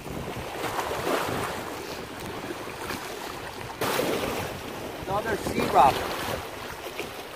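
Small waves washing and splashing against rocks at the shoreline, with wind buffeting the microphone; the wash surges louder about four seconds in.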